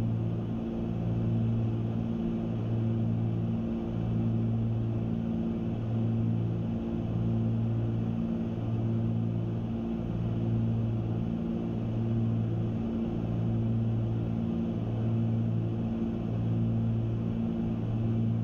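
Cabin drone of the Cessna 310's twin piston engines and propellers in flight, steady, with a slow even throb about every second and a half: the beat of two propellers turning at slightly different speeds.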